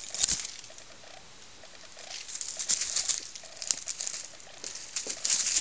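Rustling and soft pattering in short bursts as a kitten bats and pounces at a streamer wand toy on a quilt.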